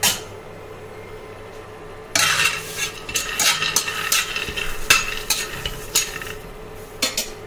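Spatula stirring and scraping peanuts roasting in a nonstick pan, the nuts clattering across the pan in a run of quick strokes from about two seconds in, with a few more near the end.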